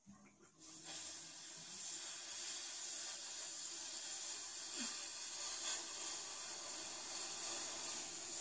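A person blowing out hard through pursed lips in one long, steady hiss of breath, starting just under a second in: a forced breath out from the diaphragm to empty the lungs, as in a pursed-lip breathing exercise.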